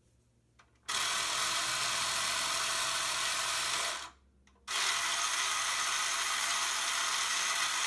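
Small electric motor of a 1970 Hot Wheels Tune-Up Tower elevator running with a steady whir as it drives the belt lift carrying a car. It starts about a second in, stops for about half a second a little after the middle, then starts again.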